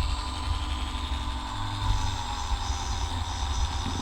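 Dremel rotary tool running with a steady whine and low hum, spinning a diecast toy car's axle while rust is sanded off its end with 220-grit sandpaper.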